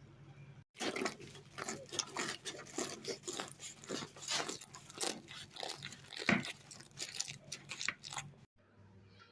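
Crisp baked yufka pastry of a chicken börek crunching in a dense run of irregular crackles, starting about a second in and stopping abruptly near the end.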